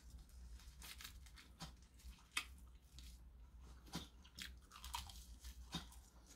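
Close-miked chewing and biting of a roasted laver (gim) wrap of rice and pollock roe, the seaweed crackling with short, irregular crunches.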